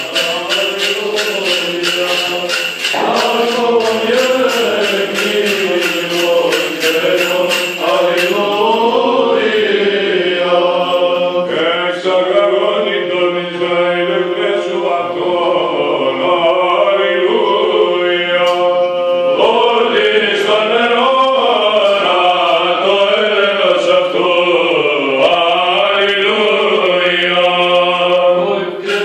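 Orthodox liturgical chant sung by several voices, with the bells of a swinging censer jingling in a steady rhythm for about the first eight seconds before stopping, while the chant goes on.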